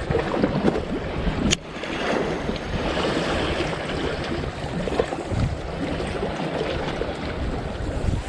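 Waves breaking and washing, with wind buffeting the microphone. There is a single sharp click about one and a half seconds in.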